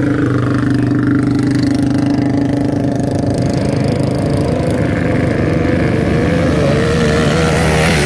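ATV engines running loud at a dirt drag strip: a steady engine note for the first few seconds, then an engine revving with a wavering, rising pitch in the second half.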